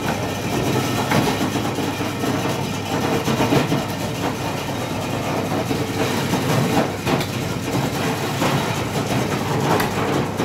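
Busy meat-market din: a steady, dense wash of crowd and stall noise, with a few short sharp knocks.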